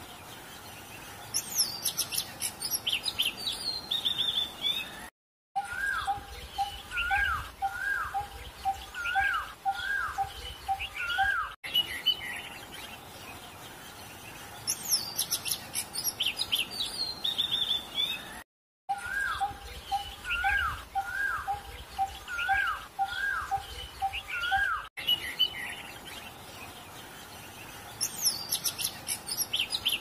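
Birds chirping and singing: high rapid twittering and a run of about six short rising-and-falling whistles over a string of quick lower notes. The same passage repeats about every 13 seconds, as in a looped birdsong recording, with two brief dropouts.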